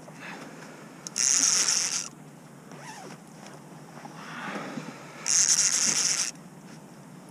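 Fishing reel ratcheting in two bursts of about a second each, about a second in and again about five seconds in, while a hooked sturgeon is being fought on the rod.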